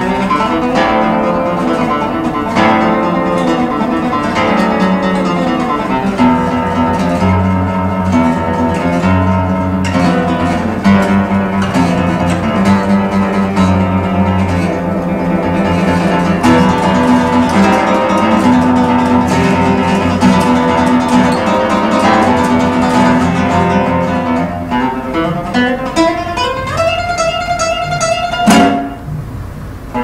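Solo classical guitar playing a fast, virtuosic toccata in dense, continuous notes. Near the end a climbing line leads to a loud, sharp accent, followed by a brief drop in level.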